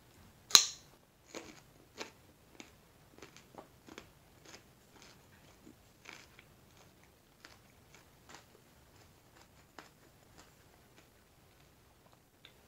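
A raw carrot bitten off with one loud crunch about half a second in, then chewed with a run of crisp crunches that come irregularly and grow fainter and sparser toward the end.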